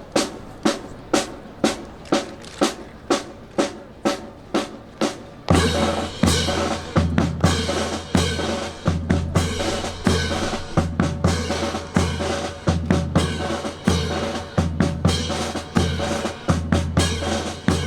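Drum beat of sharp, evenly spaced strikes about two a second; about five and a half seconds in, full drum-led music with a heavy bass comes in and keeps a steady beat.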